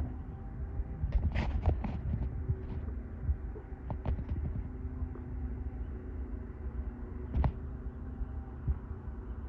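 Wind buffeting the microphone as a low, uneven rumble over a faint steady hum, with a few short knocks.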